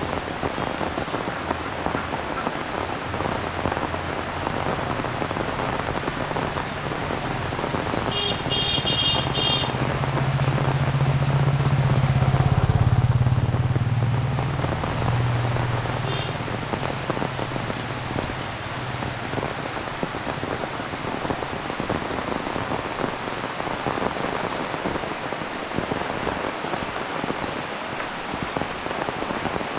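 Heavy rain falling steadily. About a third of the way in, a quick run of high, rapidly repeated signal tones sounds, then a motor vehicle passes, its low engine hum swelling and fading over several seconds.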